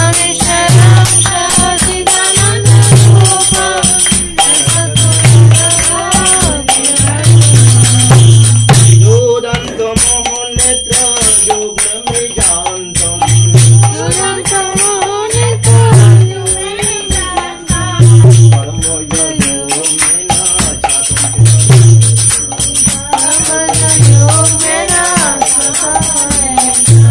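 Vaishnava devotional hymn with voices singing a wavering melody over jingling percussion and a low drum beat that comes in pulses every couple of seconds.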